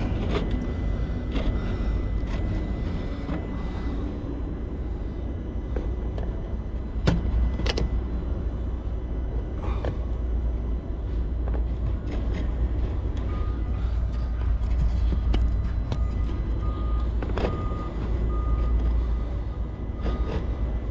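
Steady low rumble with an electronic beeper sounding in short repeated beeps in the second half, and a few sharp metallic clicks and knocks from hand tools at the skid steer's hydraulic pump, the loudest about seven seconds in.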